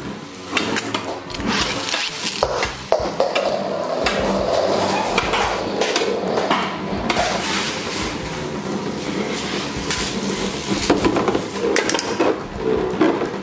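Metal-rimmed Infinity Nado spinning tops whirring in a plastic stadium, repeatedly clinking and knocking against each other and scraping around the bowl.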